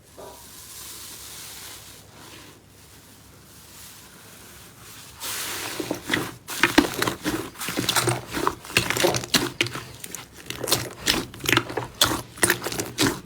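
Slime being squished and worked, giving a quick irregular run of crackling, popping clicks that starts about five seconds in, after a few seconds of faint hiss.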